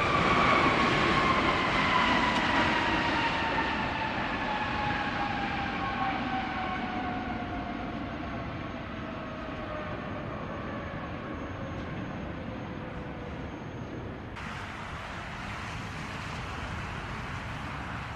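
Boeing 777 twin-engine jet taxiing past, its engine whine falling steadily in pitch and fading as it moves away over a broad rumble. About 14 seconds in, the sound cuts to a fainter, steady rush of a jet airliner on approach.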